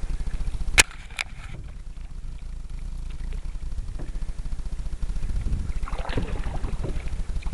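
Canoe being paddled through calm water under a steady low rumble, with two sharp knocks a little under a second in and just after.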